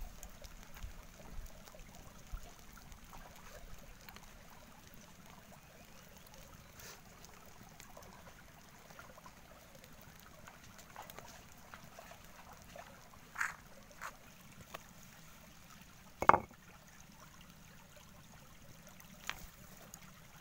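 Stream water trickling faintly and steadily, with scattered small clicks and one sharp knock about three-quarters of the way through.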